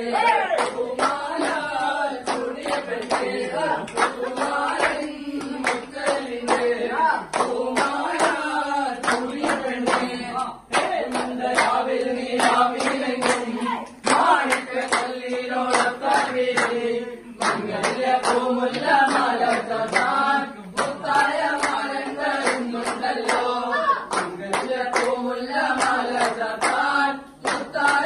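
A group of voices singing together to steady rhythmic hand-clapping.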